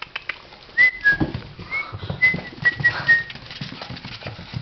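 Young puppy scampering, claws tapping and pattering on a hard floor with a few heavier thumps. A string of short, high, squeaky whistle-like tones sounds about a second in and lasts for a couple of seconds.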